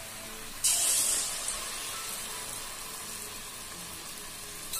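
Punugulu (rice-flour batter fritters) deep-frying in hot oil: a steady sizzle that flares up sharply about half a second in, as fresh batter hits the oil, then eases back.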